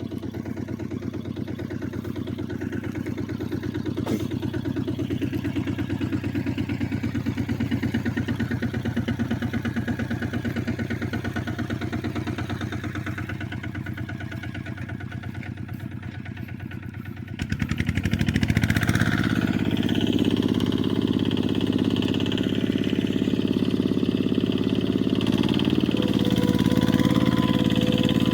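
An engine running steadily with a fast, even firing beat. About two-thirds of the way through it suddenly grows louder and fuller, as if revved or put under load.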